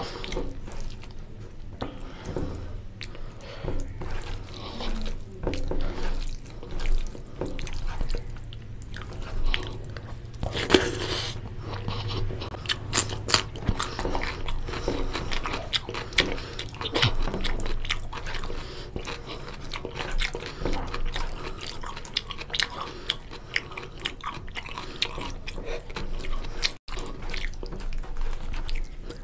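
Close-miked eating: a person chewing and biting mutton curry and goat trotters (mutton paya) with rice, a steady run of irregular small mouth clicks and smacks, with a louder burst about ten seconds in.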